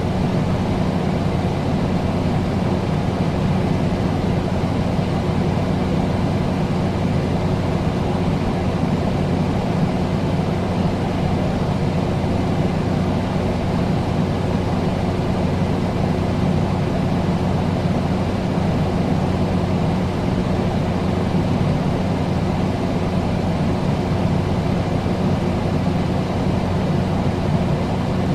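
Air conditioner running steadily: an even rush of air over a constant low hum.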